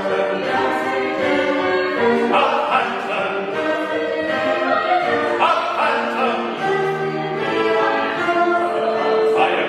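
Several voices singing in close harmony on held notes, accompanied by keyboard and cello.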